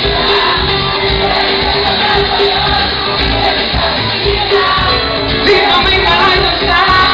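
Live band music with singing, loud and continuous.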